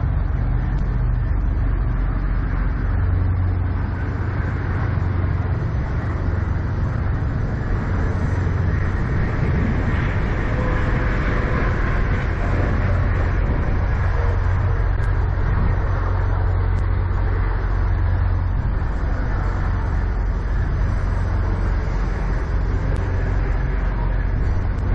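Kenworth semi truck's diesel engine idling, a steady low rumble.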